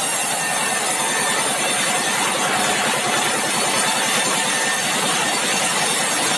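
Sawmill engine running steadily under load while the saw cuts through a red meranti log, a dense hiss of cutting over the engine's fast pulsing.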